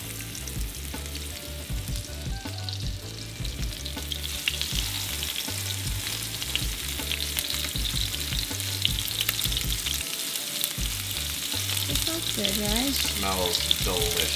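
Cobia fillets sizzling and crackling in hot peanut oil in a nonstick frying pan, with a dense spitting hiss that grows louder as more pieces are laid in.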